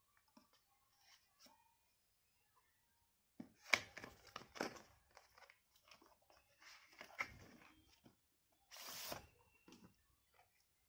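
Cardboard retail packaging being opened with a knife: short bursts of tearing and crackling as the seal is cut, about three and a half seconds in and again around seven seconds. Near the end comes a brief scraping hiss as the outer cardboard sleeve slides off the inner box.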